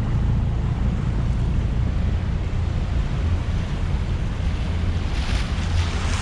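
Wind buffeting the microphone over the rush of water along a small sailboat's hull in strong current, with a brief louder wash of water about five seconds in.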